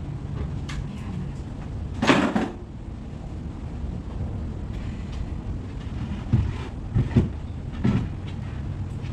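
Wooden cabinet panels knocking and banging as the cabinet is taken apart by hand: one loud bang about two seconds in, then a few quicker thumps near the end, over a steady low background hum.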